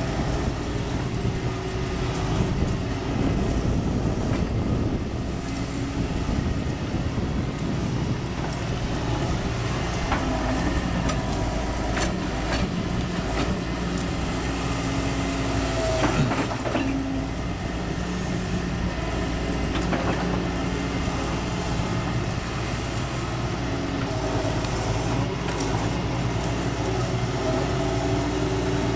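A heavy machine's engine running steadily, as it works a broom sweeper attachment, with scattered sharp clicks and knocks over a steady noise of the brushing.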